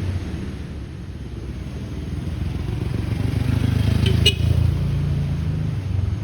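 A motor vehicle engine running, growing louder to a peak about four seconds in and then easing off, with one sharp click around the peak.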